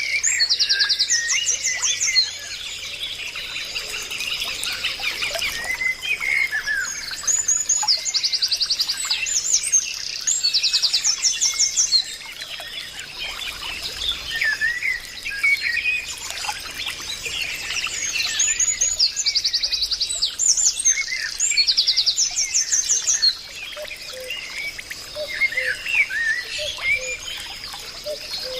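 Several birds singing and calling at once: a fast, high trill repeats every few seconds over a steady chorus of shorter chirps.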